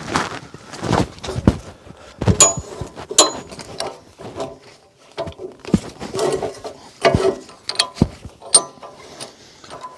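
Irregular mechanical clicks and clunks as the log clamp on a Wood-Mizer LT15 Go sawmill is worked to clamp a log on the bed.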